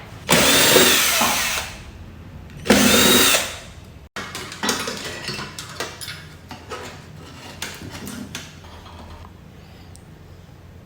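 Cordless drill or electric screwdriver running in two short bursts, the first about a second and a half long and the second about a second, each with a whine that rises and falls. Scattered light clicks and taps of handling follow.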